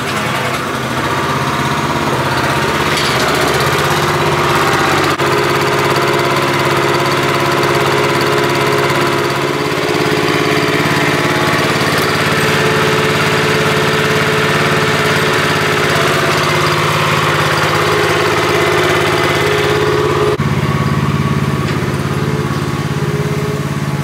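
Small gasoline engine on a round-bale feeder cart running steadily at a constant speed.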